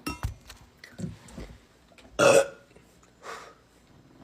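A young woman burping loudly once, about two seconds in, the burp lasting about a third of a second, with a few softer short sounds before and after it.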